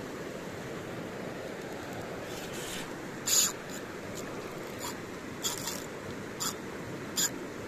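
A size-7000 spinning reel and rod worked by hand while retrieving a lure. Short, irregular scrapes and clicks come about once a second over a steady background hiss, the loudest about three seconds in.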